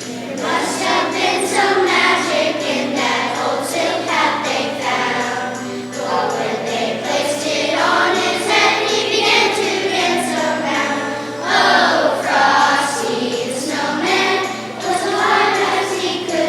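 A choir singing with jingle bells shaking along.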